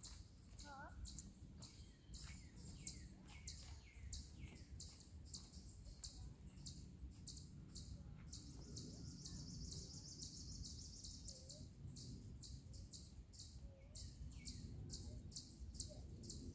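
Birds chirping in the background: rapid, evenly repeated high chirps throughout, with a few descending calls in the first few seconds, over a faint low rumble.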